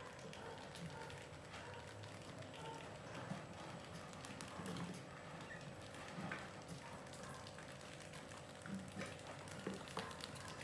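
Mice scurrying over a plastic bucket lid and wooden ramps: faint scratching of claws with scattered light taps and clicks, a little busier near the end. A faint steady hum lies underneath.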